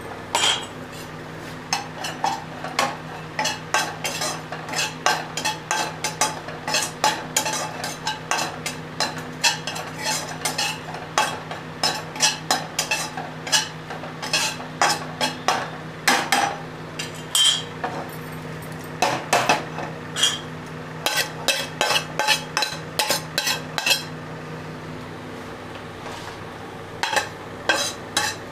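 A spoon scraping and tapping around the inside of a non-stick kadhai in quick, irregular strokes while kasuri methi (dried fenugreek leaves) dry-roasts in the pan. The strokes stop for a few seconds near the end and then start again, over a steady low hum.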